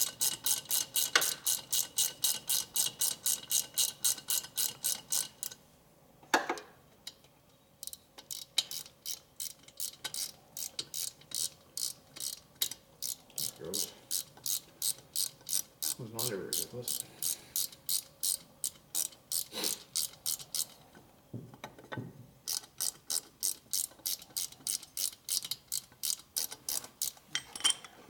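Socket ratchet clicking in long even runs of about four to five clicks a second, pausing twice, as bolts on a motorcycle engine's rocker box are turned. A few duller knocks fall in the pauses.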